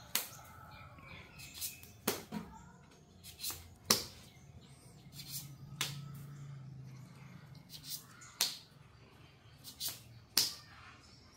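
Irregular sharp clicks and knocks, roughly one a second, over a faint low hum.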